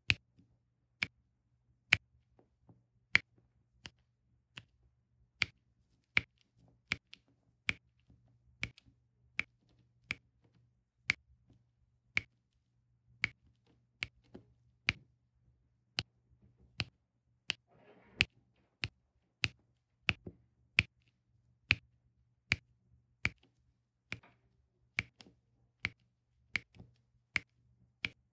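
Diamond-painting drill pen pressing round drills onto the sticky canvas, each placement a sharp click, repeated steadily about one and a half times a second.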